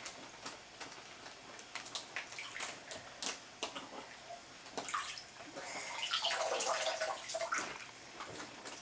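Water lapping and dripping in an inflatable birth pool: many small splashes and drips. About six seconds in, a brief pitched sound rises above the water for a second or so.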